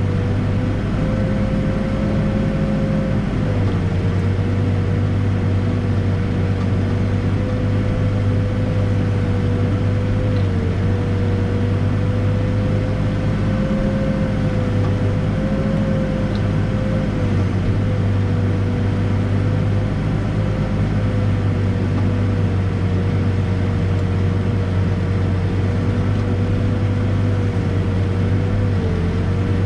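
Backhoe's diesel engine running steadily at working speed while digging, with a steady whine that dips slightly in pitch now and then.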